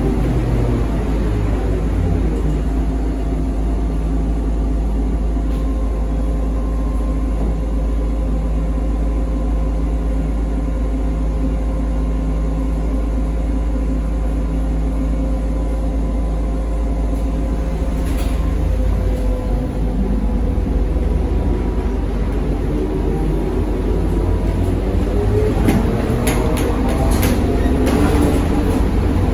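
ZiU-682V trolleybus in motion, heard on board: a steady rumble with the whine of its traction motor and running gear. About two-thirds of the way through the whine rises in pitch as it picks up speed, and a few sharp clicks follow near the end.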